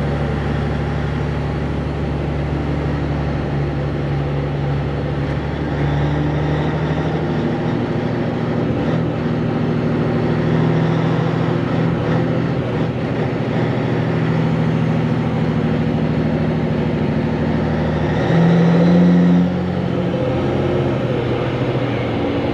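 Diesel engine of a Peterbilt 362 cabover truck, a Caterpillar 3406B, running under way. Its note shifts in pitch a few times, with a brief louder stretch about eighteen seconds in.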